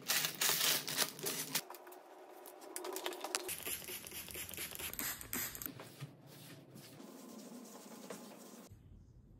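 Close-up desk cleaning: small items clicking and rustling as they are moved at the start, a trigger spray bottle spritzing cleaner onto the desk in the middle, then a cloth rubbing and wiping the surface.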